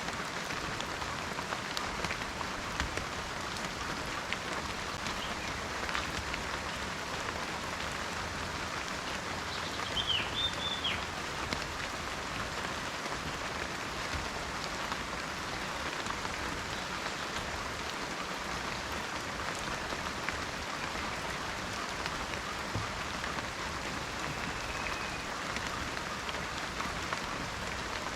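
Steady rain falling on forest foliage, a continuous patter of drops, with a bird giving a few short chirps about a third of the way through.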